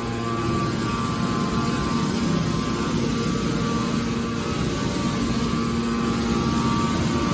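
Hydraulic scrap car baler running: a steady machine hum with a rough low rumble, the sound of its motor and hydraulic pump under way.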